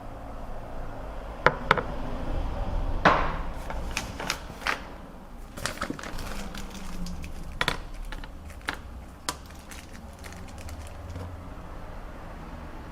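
Scattered sharp clicks and knocks of small hard objects being handled, about a dozen spread irregularly, over a low steady rumble.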